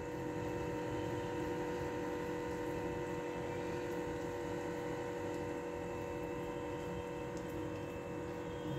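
Steady hum made of several constant tones, holding an even level throughout.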